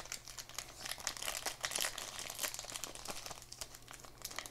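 Wrapper of a baseball card pack crinkling as it is handled and opened: a dense run of small crackles.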